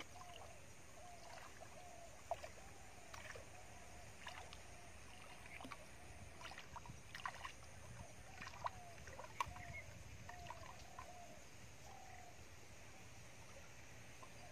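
Faint splashing and sloshing of water as someone wades through a shallow, muddy stream, with scattered small splashes. A short call repeats about once a second in the background.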